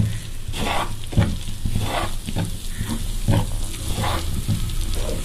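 Wooden spatula stirring and scraping besan (gram flour) through melted ghee in a pan, in repeated strokes about two a second, with a faint sizzle: the gram flour is at the start of being roasted in ghee.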